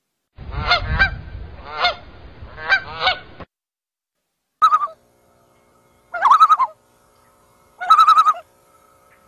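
Geese honking: a quick series of about five honks over a low rumble, cut off abruptly, then three more spaced calls, the first one short.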